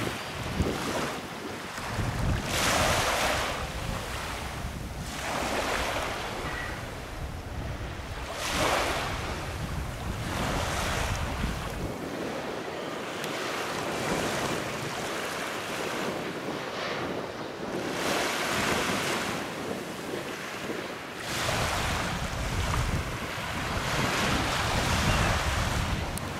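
Small, gentle sea waves lapping and washing up on a sandy beach. The surf swells and fades every few seconds. Wind rumbles on the microphone at times.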